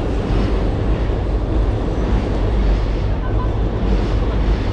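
Steady low rumble of city street noise, traffic-like, with no distinct single event.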